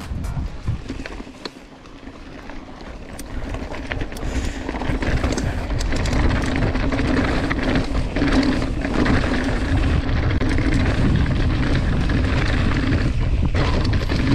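Mountain bike riding fast down a stony gravel trail: the tyres rumble and crunch over loose stones, the bike rattles, and wind rushes past. The noise builds over the first several seconds as speed picks up, then holds steady and loud.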